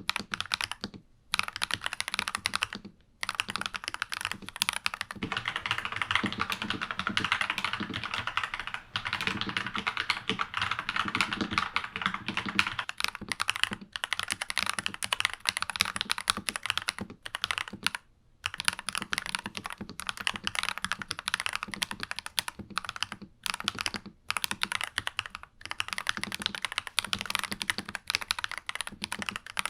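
Fast, continuous typing on a NuPhy Halo96 mechanical keyboard with lubed Akko Vintage White switches: a dense stream of key clacks with a few short pauses, about a second in, around three seconds, and near eighteen seconds.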